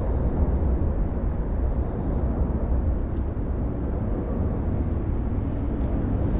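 Steady low rumble with a hiss over it: continuous outdoor background noise with no distinct event.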